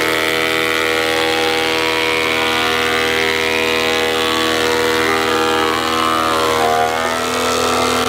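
Grizzly thickness planer running, its cutterhead planing a pine board, with a steady loud whine; the pitch sags briefly about seven seconds in and recovers.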